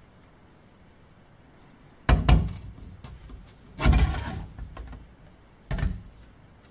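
WWII German M40 steel helmet shell knocking against a hard surface as it is handled: three dull knocks, the middle one the longest.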